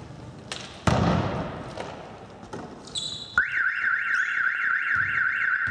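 A ball thud just under a second in, a short high whistle at about three seconds, then a loud siren-like warbling tone that rises and falls about four to five times a second.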